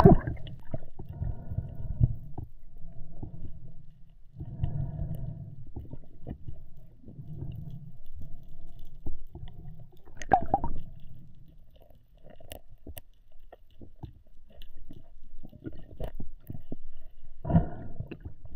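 Muffled underwater sound picked up by a camera below the surface: low rumbling water movement in uneven surges, scattered small clicks and knocks, and two louder muffled bursts, one about ten seconds in and one near the end.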